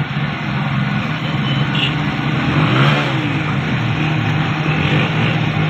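Motor-vehicle engine running steadily amid street noise, with a vehicle revving or passing about three seconds in.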